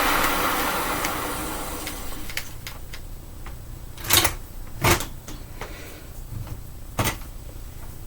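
1997 Hoover Sprint U4257-930 vacuum cleaner's motor winding down after being switched off, fading over the first two seconds. Then a few plastic clunks and clicks of the machine being handled, the loudest about four, five and seven seconds in.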